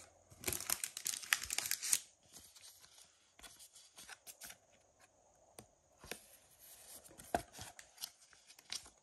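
Trading cards and a plastic card sleeve being handled: a dense rustling, scraping burst about half a second in that lasts over a second, then scattered short rustles and clicks as a card is slid into the sleeve.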